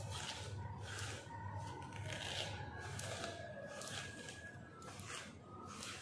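Plastic comb drawn again and again through long hair, a short swishing rustle with each stroke, roughly one stroke every half second to a second, over a steady low hum.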